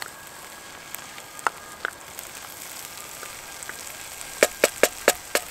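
Minced beef and tomato sauce sizzling steadily in a frying pan on a Trangia storm cooker. Near the end come about six sharp taps in quick succession.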